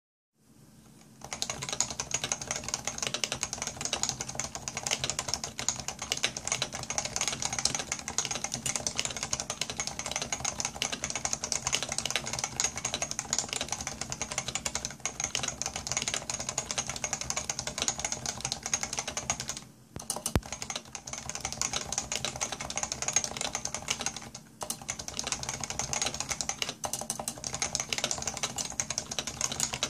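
Fast continuous typing on a Leopold FC660C keyboard with Topre electrostatic capacitive switches and grey keycaps: a dense stream of key strokes. The strokes start about a second in and pause briefly twice, around two-thirds of the way through.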